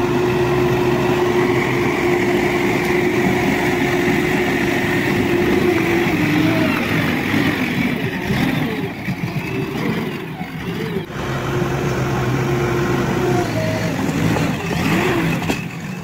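JCB backhoe loader's diesel engine running under load as its front loader bucket pushes earth. The engine note holds steady at first, wavers and dips through the middle, then steadies again before falling off near the end.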